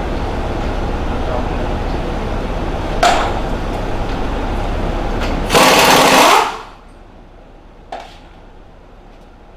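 Pneumatic impact wrench hammering steadily on a leaf spring bolt, with a louder, harsher burst for about a second, then stopping abruptly. A single short knock follows near the end.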